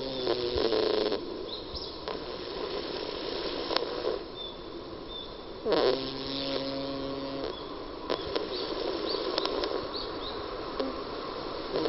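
Sleeping domestic cat snoring: a pitched, rattling snore at the start and another about six seconds later lasting nearly two seconds, each dipping in pitch as it begins.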